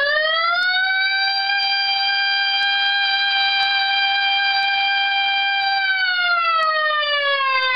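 A man's voice imitating a fire-engine siren in one long breath: the pitch sweeps up, holds steady for about six seconds, then slowly slides down near the end.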